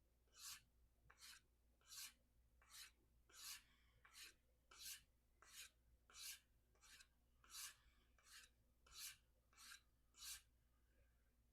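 Faint, steady strokes of a steel knife blade stropped on a hard leather strop charged with 3 micron diamond emulsion, about one short scrape every 0.7 s, alternating stronger and weaker. The stropping is working out damage along the VG-10 edge.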